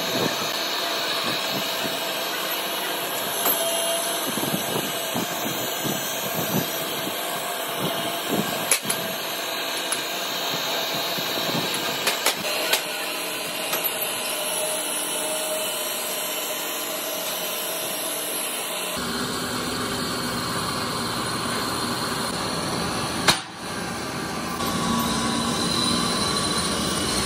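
A grinding machine running as a steel kingpin blank is ground under its guard: a steady mechanical hum with a held tone and a few sharp clicks. Partway through, the sound changes abruptly to a lower, fuller workshop rumble, with one sharp knock shortly after.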